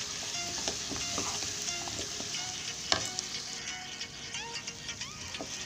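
Potato, pumpkin and Malabar spinach stalks sizzling in oil in a nonstick wok as they are stirred with a wooden spatula, with many small scrapes and clicks of the spatula against the pan and one sharper knock about three seconds in.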